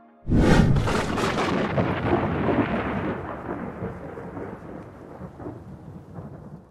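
Thunderclap sound effect: a sudden crack about a quarter second in, then a rumble that slowly fades away.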